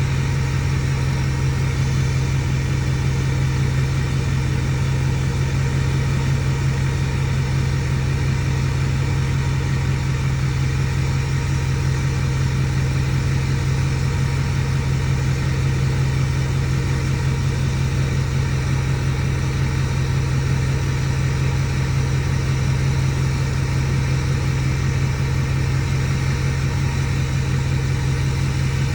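Ford 6.4 Powerstroke V8 turbo-diesel idling steadily, with an even low drone that does not change.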